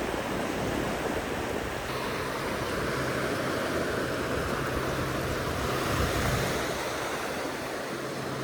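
Ocean surf washing onto a beach, a steady rush that swells a little about six seconds in.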